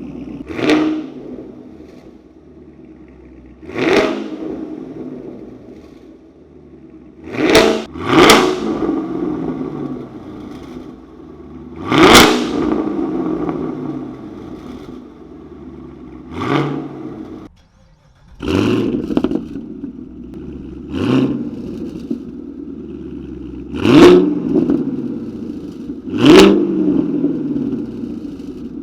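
Sixth-generation Camaro's 6.2-litre V8 running through an AWE Touring Edition cat-back exhaust with X-pipe and quad tips. It idles and is repeatedly blipped in quick free revs, about every two to four seconds, each rev rising sharply and settling back to idle. The sound cuts out briefly about two-thirds of the way through.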